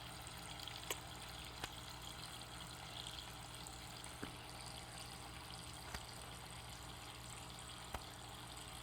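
Faint, steady trickle of running water, with a few scattered faint clicks.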